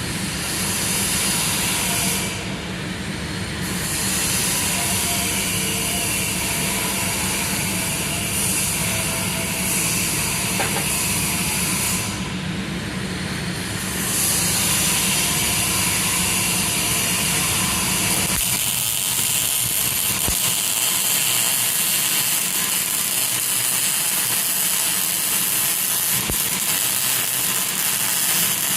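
Electric arc welding a multi-pass bead onto a broken differential locker: a steady crackling hiss, briefly broken twice between runs, with a low hum underneath that stops about two-thirds of the way through.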